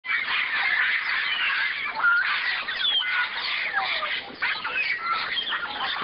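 A flock of African grey parrots calling: many overlapping whistles and harsh squawks, some gliding up and some down, without a break.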